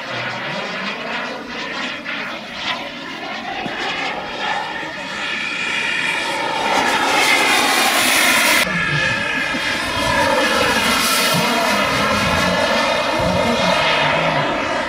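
Large radio-controlled model A-10 Warthog jet flying a close pass, its engines whining. The whine climbs in pitch and loudness as it approaches, then slides down in pitch after it goes by about halfway through.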